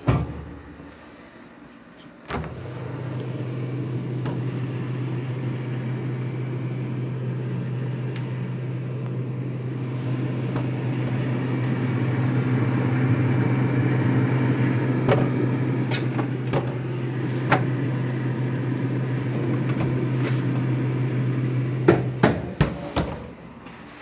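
Mabe refrigerator humming steadily at a single low pitch while it runs, heard from close by, starting with a click about two seconds in. The hum cuts off near the end, followed by a few sharp clicks and knocks.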